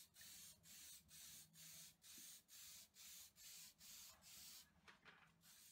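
Aerosol can of spray adhesive hissing faintly in short, even pulses, two or three a second, stopping near the end.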